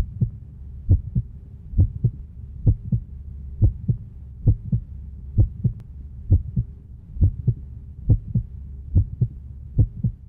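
Heartbeat sound effect: a steady lub-dub of paired low thuds, about 65 beats a minute, over a faint low hum.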